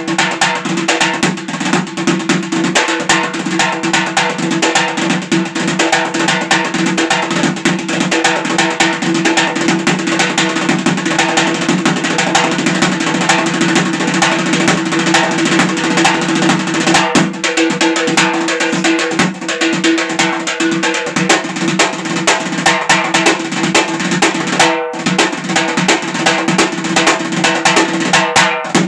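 Frame drum struck rapidly by hand in a dense rhythm with rolls, over a button accordion holding sustained notes. The playing breaks off briefly about 17 and 25 seconds in.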